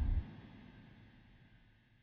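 A loud sound effect with a heavy low end cuts off abruptly just after the start, leaving an echoing tail that fades away over the next two seconds.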